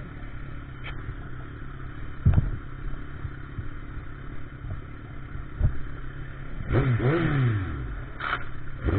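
Motorcycle engine running under steady wind rumble, with two sharp thumps in the first half. Near the end the engine revs up and drops back.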